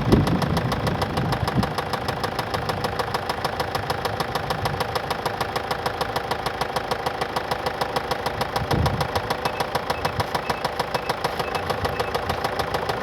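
2013 Mazda 6 2.2-litre diesel engine running steadily with an even, rhythmic knock from inside the engine: the sign of bearing damage, a serious internal engine fault.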